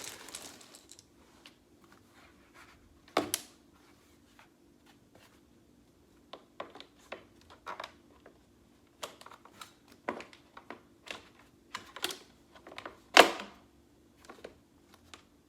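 Plastic parts of an IKEA VESKEN shelf unit knocking and clicking as they are handled and pressed together: a string of irregular taps, with two louder knocks about three seconds in and about two seconds before the end, over a faint steady hum.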